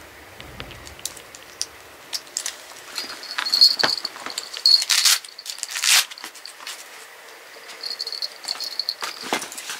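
Cat scrambling out of a fabric pet carrier: rustling of the carrier's cloth with scattered clicks and light knocks from its metal clips and straps.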